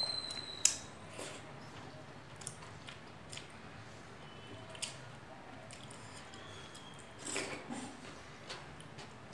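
Eating rice by hand: chewing, with fingers mixing rice and curry on a plate giving scattered light clicks and squishes. A sharp click comes about half a second in, and a louder cluster of clicks and rustle near the end.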